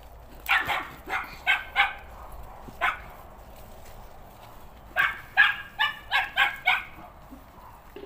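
Dog barking in two bouts: about five barks in the first three seconds, then a quick run of about six starting about five seconds in.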